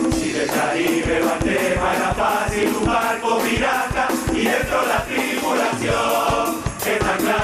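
Murga chorus singing together over a steady beat of drums and cymbals.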